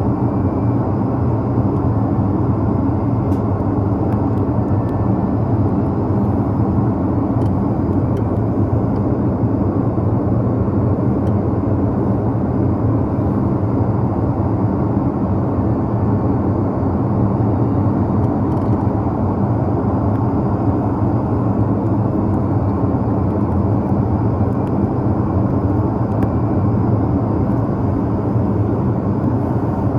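Steady cabin noise inside an Airbus A330-300 airliner in flight: an even, deep rumble of engines and airflow that does not change.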